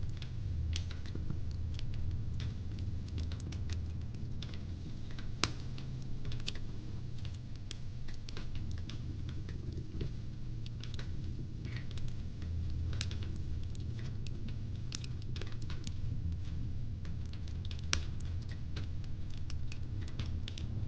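Wood fire in a fire pit crackling: irregular sharp pops and snaps over a low steady rumble, with a louder pop about five seconds in and another near eighteen seconds.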